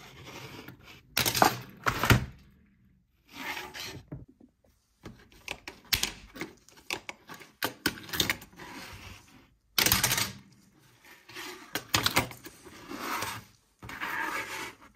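Die-cast toy cars and a plastic launcher ramp being handled on a tabletop: irregular clicks, knocks and short scrapes, in bursts with brief pauses, the loudest clatter about a second in and again about ten seconds in.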